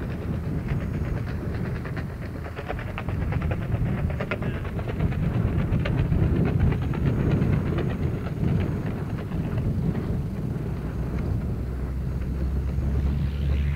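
Wind rushing over a skydiver's camera microphone: a steady low rumble with a fast fluttering rattle.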